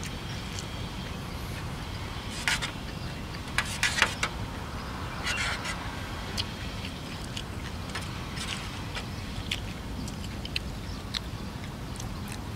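Close-up eating sounds: rice noodles in curry sauce being chewed and slurped, with a metal spoon clinking and scraping in a metal tray. The loudest wet smacks and clicks come in clusters between about two and a half and five and a half seconds in, then single clicks, over a steady low rumble.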